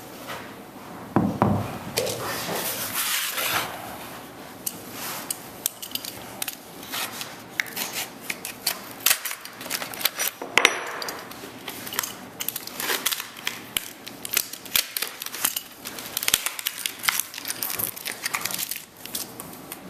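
Plastic blister packaging crackling and being torn open by hand, with repeated clicks and clinks of small metal lock parts knocking together as they are pulled out.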